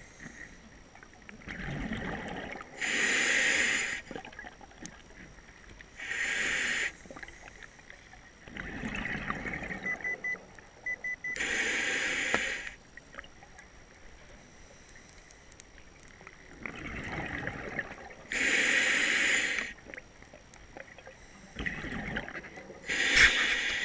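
A scuba diver breathing through a regulator underwater. A sharp hissing inhale comes about every five or six seconds, alternating with lower, gurgling rushes of exhaled bubbles.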